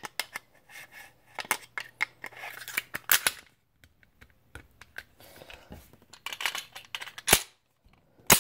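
Clicks and scrapes of a semi-automatic pistol being reassembled: the slide, with its recoil spring and guide rod, is worked onto the frame. Two sharp clacks near the end are the loudest sounds.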